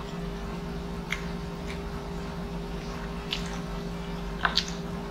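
Close-up wet mouth sounds of a person chewing food: a few short smacking clicks, loudest a little after four seconds, over a steady low hum.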